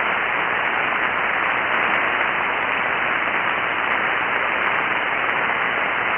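Ham radio transceiver receiving on the 7.188 MHz single-sideband net frequency: a steady hiss of band noise with no station transmitting, so no emergency traffic has answered the call.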